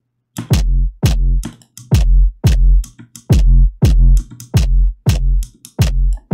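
Neuro bass stabs from a Serum synth patch, distorted through iZotope Trash 2, playing in a loop: short punchy hits about two a second. Each hit has a sharp top-end click, a quickly falling pitch and a heavy sub underneath.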